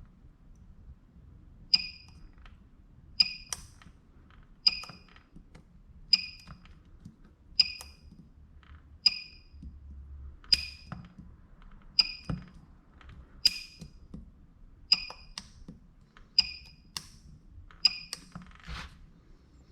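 PCB battery spot welder firing through a handheld spot welding pen, welding 0.1 mm strip onto 18650 cells: a sharp snap with a short ringing ping at each weld, repeating evenly about every second and a half, a dozen times, with a few lighter clicks between.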